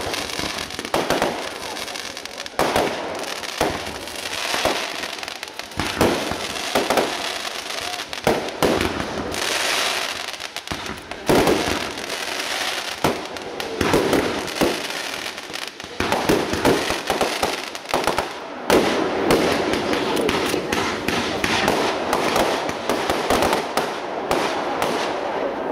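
Professional fireworks display firing a rapid, continuous barrage of bangs and crackling from many shots launched and bursting together, with no real pause.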